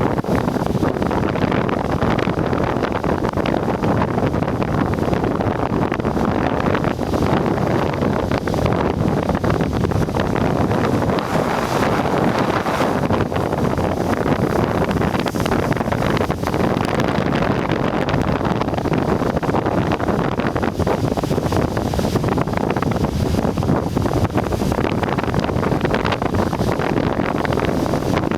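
Strong sea wind buffeting the microphone: a loud, steady rumbling noise, with crashing surf on the rocks mixed in.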